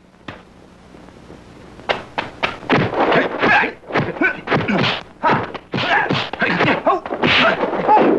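Martial arts film fight sound effects: from about two seconds in, a rapid flurry of dubbed punch and kick impacts, sharp whacks and thuds in quick succession, mixed with the fighters' shouts and grunts.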